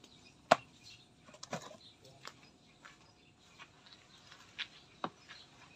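Faint rustling with a few sharp clicks, the loudest about half a second in: bougainvillea scion cuttings being handled and sorted.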